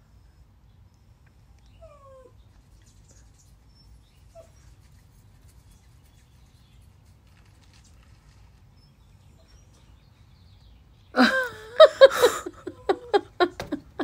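Mostly quiet background with a faint short falling call about two seconds in. About three seconds before the end, a person close by breaks into loud, high-pitched laughter in quick pulses.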